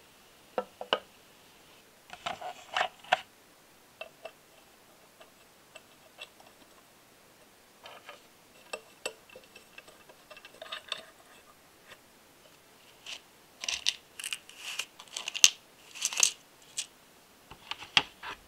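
Small metal parts of a four-cylinder engine model kit clicking and clinking as they are handled: valve-spring assemblies fitted into the metal cylinder head and valves lifted from a plastic tray. Irregular sharp clicks and taps, busiest about two seconds in and again towards the end.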